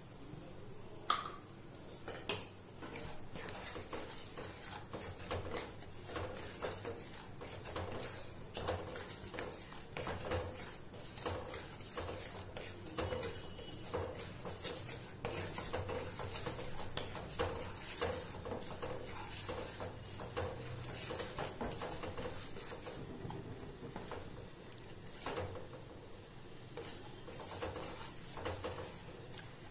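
Wooden spatula stirring and scraping semolina around a nonstick kadai as it roasts in ghee: a steady run of short scrapes with light knocks against the pan.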